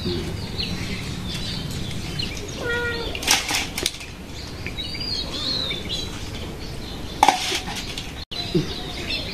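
Steel plates and a serving spoon clinking a few times, loudest about three seconds in and again about seven seconds in, with small birds chirping and one short pitched call.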